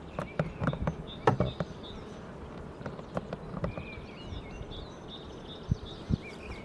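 Honeybees buzzing around the hive, with a series of sharp clicks and knocks in the first couple of seconds.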